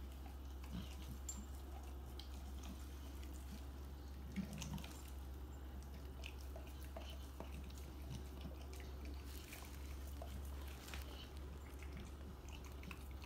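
Dog chewing and licking an oxtail bone: faint, scattered wet smacks and clicks.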